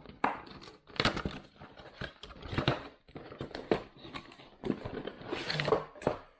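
A microphone's cardboard box and packaging being handled and opened: irregular rustling and scraping with small knocks and clicks.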